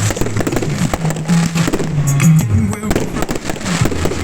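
Fireworks going off, with rapid crackling and bangs close together, while music plays underneath.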